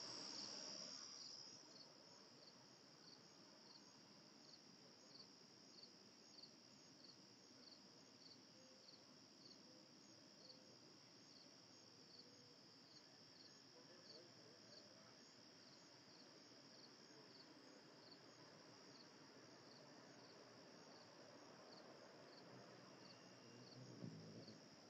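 Faint, steady chorus of singing insects: a continuous high trill with a regular chirp repeating evenly through it.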